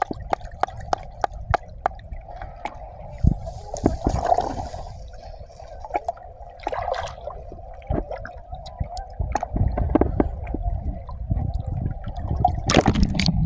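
Shallow water sloshing and gurgling, with many sharp clicks and knocks scattered through it and a few louder splashes.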